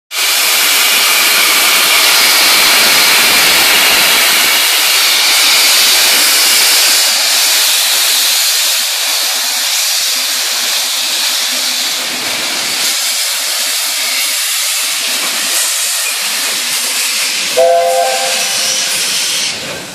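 LNER A4 class steam locomotive venting steam from its open cylinder drain cocks: a loud, steady hiss that eases a little partway through. Near the end a brief higher-pitched note cuts in.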